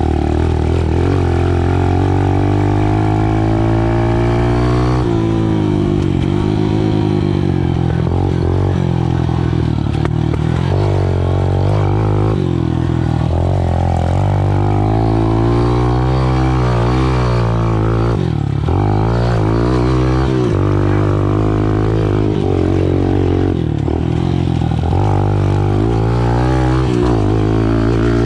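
Small 110cc dirt bike's single-cylinder engine being ridden, its pitch rising and falling as the throttle is worked.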